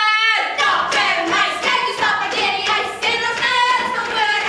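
Children singing without accompaniment, led by a girl's high voice. A long held note ends just after the start and gives way to quick sung phrases.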